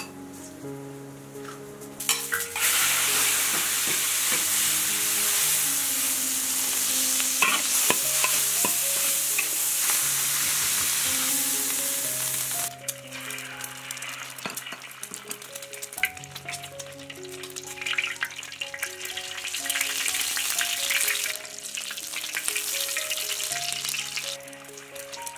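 Food sizzling and being stir-fried in a hot wok: a loud, steady sizzle starts about two seconds in and cuts off suddenly about halfway. After that, quieter, uneven frying with spatula scrapes and clicks as an egg fries in hot oil, over light background music.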